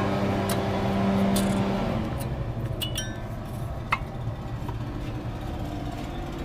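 A few light metallic clinks and clicks of new brake pads and their steel hardware being fitted into the caliper bracket guides, over a steady low hum that drops away about two seconds in.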